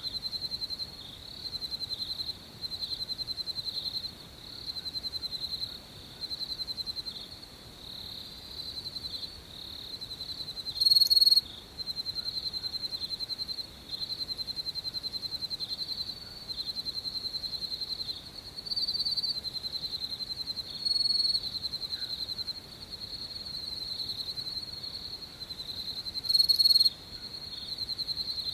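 Crickets chirping in fast, high-pitched pulsed trills that come in bouts with short gaps. Several insects overlap. A louder, closer cricket chirps briefly twice, about a third of the way in and near the end.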